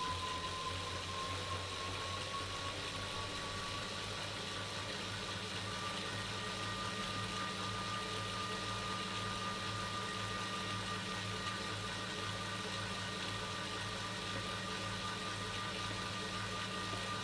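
Wahoo KICKR Core direct-drive smart trainer spinning at about 30 mph under a rider. Its flywheel makes a steady thin whine over a low hum. The whine rises slightly in pitch over the first few seconds as the speed comes up, then holds.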